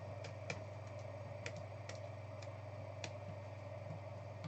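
A few scattered light clicks of computer keys, irregularly spaced, over a steady low electrical hum.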